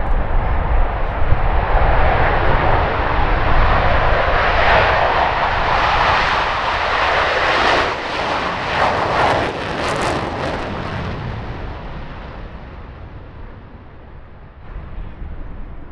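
The four F/A-18 Hornets of the Blue Angels Diamond passing in afterburner: jet noise builds and brightens to a peak, with a crackling edge about eight to eleven seconds in, then fades away.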